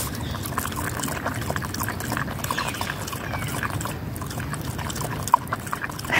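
Cavalier King Charles spaniel lapping water from a plastic squeeze bottle held to its mouth: a steady run of quick, wet licks and slurps, with one sharper click about five seconds in.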